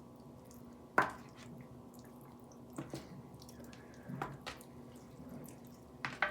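A scatter of short, sharp clicks and taps from kitchen items being handled while chicken wings are seasoned on a cookie sheet. The loudest comes about a second in and the rest fall in pairs, over a faint steady hum.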